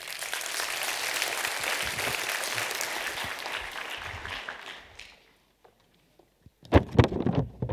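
Audience applauding, dying away after about five seconds. A few loud thumps come near the end.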